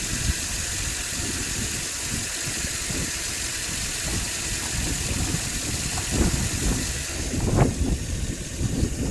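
Land Rover LR3's 4.4-litre V8 engine idling, running rough with a misfire on several cylinders. There are some louder, uneven rumbles near the end.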